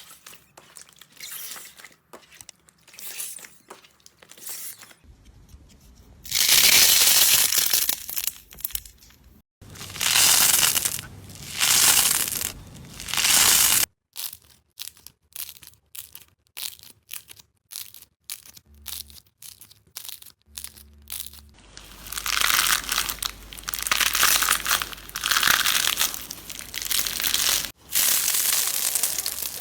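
Slime being pressed, stretched and squeezed by hand. For the first few seconds there are quick scattered clicks and pops. Then come loud stretches of a second or two each with dense crackling, then more scattered clicks, and a long loud crackling stretch near the end.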